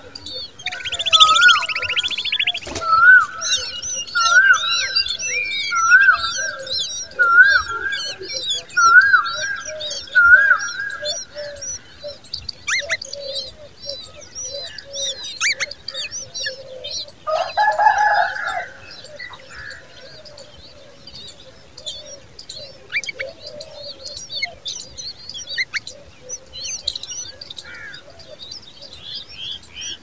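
Begging common babbler nestlings chirping with constant thin, high calls. Over them a clear bird note repeats about once a second for the first ten seconds, and a louder, harsher burst of calls comes a little past halfway.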